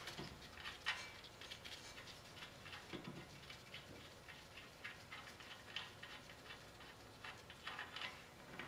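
Faint, irregular small clicks and ticks of a loosened upper ball joint nut being turned off its stud by gloved hands.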